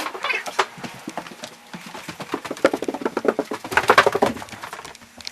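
A fast, dense patter of light taps and clicks that swells to its loudest about three to four seconds in.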